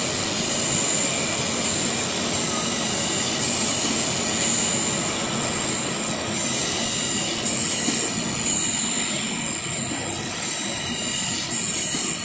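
CNC knife cutting machine running while it cuts leather: a steady rushing mechanical noise with a high whine over it.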